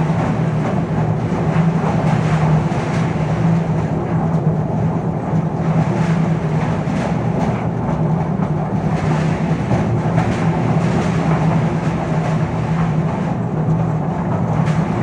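Wheeled excavator's diesel engine running steadily, a constant low hum with mechanical clatter over it.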